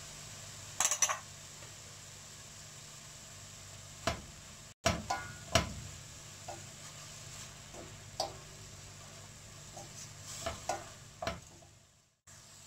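A spatula stirring chopped spinach and amaranth greens in a stainless steel pot, with scattered knocks and scrapes against the pot: a quick cluster about a second in, then single strikes every second or so.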